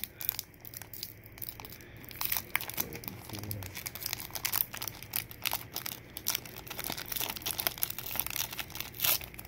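Foil wrapper of a Pokémon trading card booster pack crinkling and tearing as it is torn open by hand, a dense run of small crackles.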